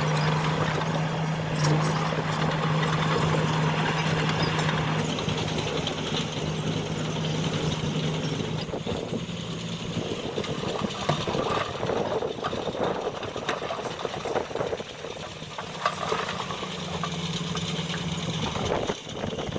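Diesel engine of heavy earthmoving machinery running, with a steady low hum for the first half that fades after about ten seconds and returns briefly near the end, over continuous mechanical clatter.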